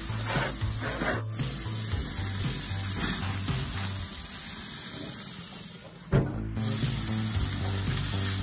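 Background music with a steady bass line over the steady hiss of New York strip steaks sizzling on a gas grill. About six seconds in, the sound dips briefly, then there is a sharp click, the loudest moment.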